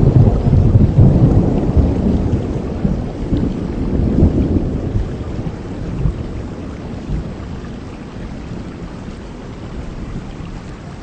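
Heavy rain falling steadily, with a low rumble of thunder that is loudest in the first few seconds and dies away, leaving the rain hiss.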